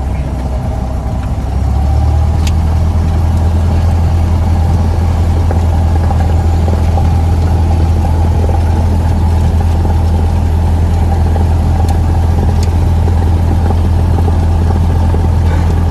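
Cessna 172's single four-cylinder piston engine and propeller running with a steady low drone. It grows louder and slightly higher about two seconds in, as the power is brought up a little.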